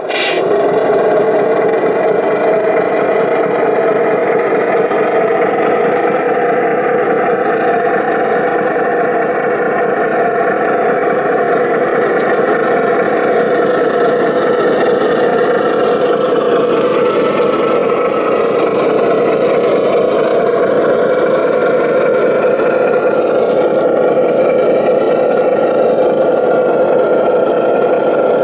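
Radio-controlled scale construction vehicle running, a steady engine-like drone whose pitch sinks slowly and then climbs back.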